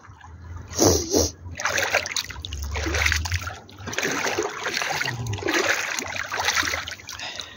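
Shallow seawater splashing and sloshing around a person's legs and feet as he wades slowly in over pebbles and rocks, in uneven swells with a sharper splash about a second in.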